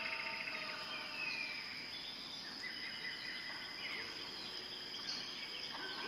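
Rainforest insects and birds: a steady, high insect drone runs underneath many overlapping bird chirps and whistles, with a fast trill at the start and a falling whistle about a second in.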